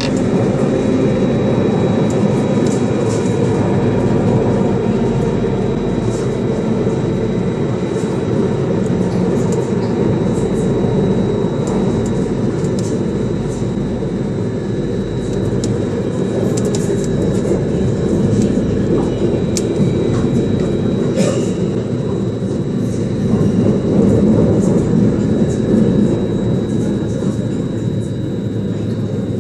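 Metro train running through an underground tunnel: a steady rumble of wheels on rail with a thin, steady high whine and scattered light ticks.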